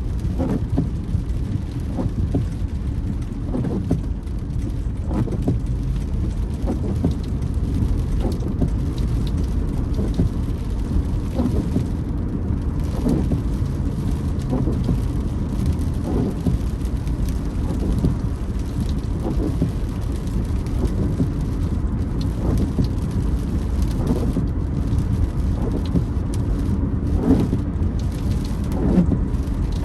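Rain on a moving car heard from inside the cabin over a steady low road rumble, with the windscreen wipers creaking across the glass again and again.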